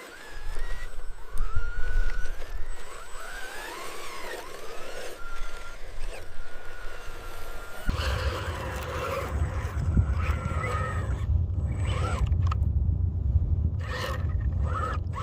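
Small RC vehicle motors whining, rising and falling in pitch, then from about eight seconds in a steady low engine-like hum with scattered clicks.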